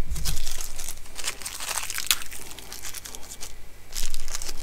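Hands rustling and crinkling among small reel parts and bearings on a towel-covered bench, with many light clicks, busiest near the end.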